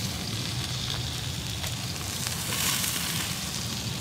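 Beef burger patties sizzling on a hot griddle plate as metal tongs lift them onto toasted buns, a steady hiss with a few light clicks.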